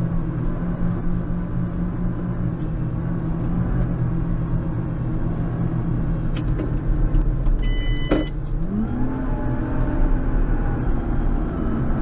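JCB Fastrac 4220 tractor engine running steadily under plowing load, then revving up about three-quarters of the way through. A short electronic beep and a click sound just before the revs rise.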